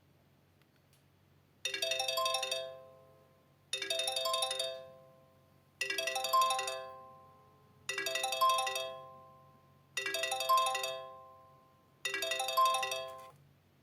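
Samsung Galaxy GT-S6802 phone ringing for an incoming call: a short multi-note ringtone phrase that plays six times, once about every two seconds.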